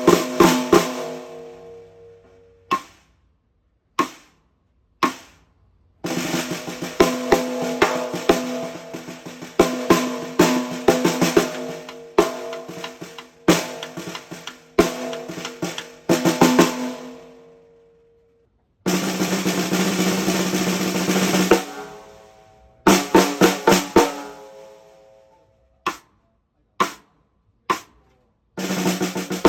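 Canopus Yaiba II birch 14x6.5 snare drum played solo: isolated single strokes left to ring out, dense passages of fast strokes, and a sustained roll of about three seconds past the middle.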